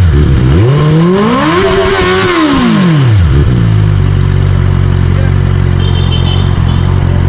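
QJMotor SRK600RC's inline-four engine revved once, pitch climbing and falling back, then settling to a steady idle about three and a half seconds in.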